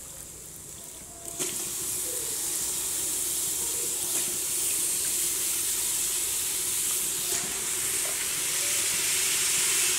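Hot oil and masala in a pressure cooker sizzling as handfuls of wet, soaked rice and dal are dropped in. The sizzling starts suddenly about a second and a half in and then holds steady.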